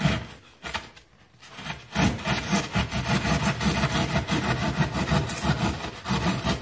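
Handsaw cutting through green rigid foam board: a first stroke or two, a short lull, then fast, steady back-and-forth sawing strokes from about two seconds in.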